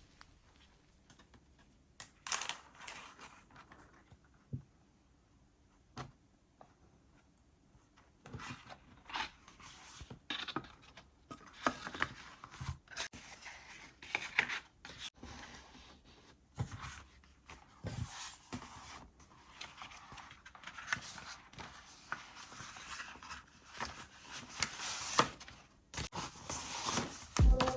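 Hands unwrapping and handling paper packaging: irregular rustling, crinkling and tearing with soft scrapes and taps, sparse at first and busier from about eight seconds in.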